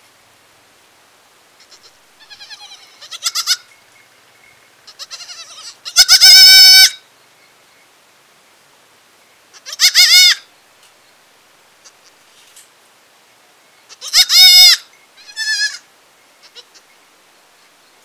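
Young goat kid bleating: a series of high, quavering bleats, softer ones first, then loud calls about six, ten and fourteen seconds in.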